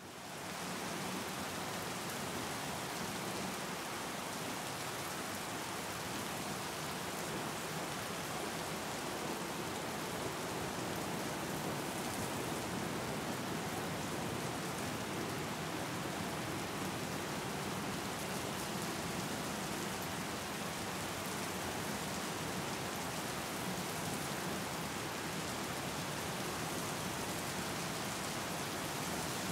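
Steady rain falling on open water, a dense, even hiss of drops on the surface. It fades in out of silence over the first second, then holds steady.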